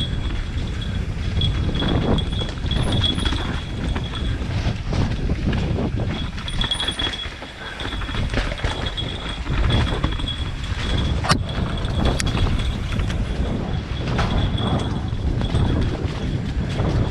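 Wind rumbling on the microphone, with a thin, steady high-pitched tone that drops out for a couple of seconds about four seconds in and fades near the end. A few sharp clicks sound about eleven and twelve seconds in.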